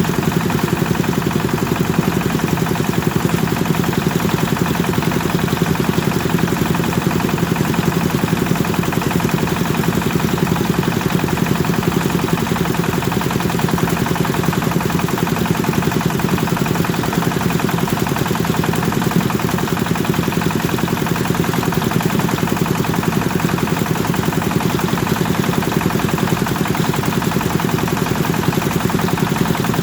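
Kubota engine of a rice thresher running steadily at constant speed, with a low, even pulse throughout.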